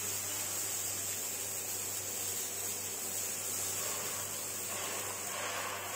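CNC thermal cutting machine cutting steel plate: a steady hiss from the cutting torches over a low, even hum.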